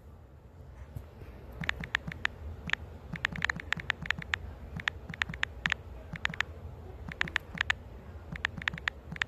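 Smartphone on-screen keyboard typing: short, sharp key clicks, several a second at an uneven pace, starting about a second and a half in with brief pauses, as a text message is typed. A low steady hum sits underneath.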